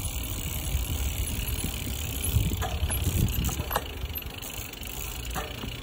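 A bicycle rolling along a tarmac road with a low, steady rumble of tyres and wind on a moving microphone, and a few faint ticks around the middle.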